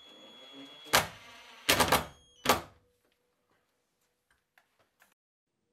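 Silverline cordless impact driver driving a screw through a metal wall bracket into a plugged tile wall. Its motor whines steadily, then it hammers in a few sharp bursts, about a second in and again around two seconds, as the screw tightens down. A few faint clicks follow.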